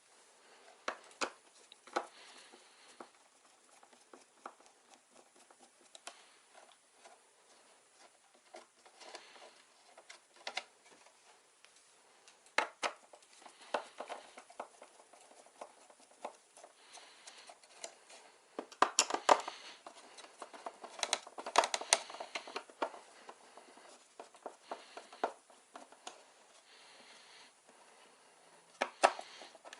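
Hands handling computer parts and tools: scattered light clicks, taps and rustling, with a denser run of clicks and rattles about two-thirds of the way through.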